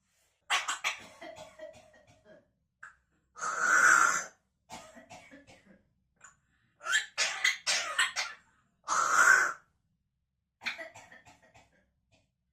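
An African grey parrot coughing hard, in about five separate bouts with pauses between them; the loudest come about four and nine seconds in.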